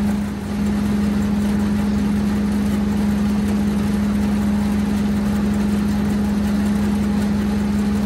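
Machinery running steadily: an engine drone with a strong, constant hum, from the hammer mill mixer and the engine driving it.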